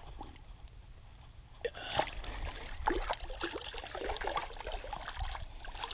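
Shallow water splashing and sloshing as a released common carp kicks free of the hand and swims off, starting after a quiet opening second or so.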